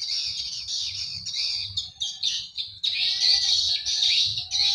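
Swiftlets twittering in a dense, continuous chorus of high chirps.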